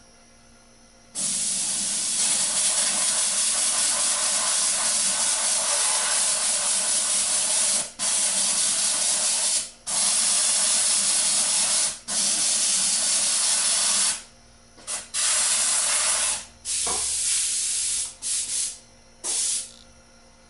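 Airbrush with a homemade screen nozzle cap spraying a speckle coat: a long, loud hiss of compressed air that starts about a second in, broken by brief pauses, then a few short bursts near the end as the trigger is tapped.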